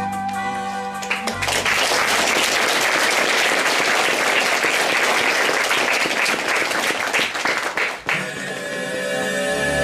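Theatre audience applauding for about seven seconds. Music ends about a second in, and new music starts near the end as the clapping stops.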